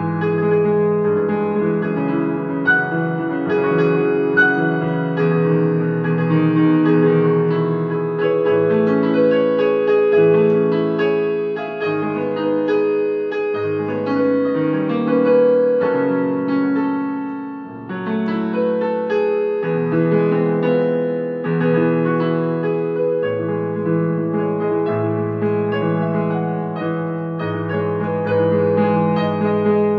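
Portable electronic keyboard played with both hands in a piano voice: held low chords under a right-hand melody, with a brief drop in loudness a little past halfway.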